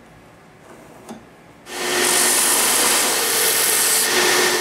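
Stationary belt sander grinding a small piece of wood held against the running belt, shaping the curve of a replacement bracket. It cuts in about a second and a half in as a loud, steady hiss with a hum, and stops at the end; before it there are only a few faint knocks.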